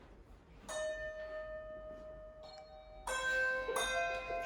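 Handbells rung one after another in a change-ringing sequence, each struck note ringing on. A single bell sounds about a second in, a fainter one follows, and from about three seconds several more are struck in quicker, louder succession.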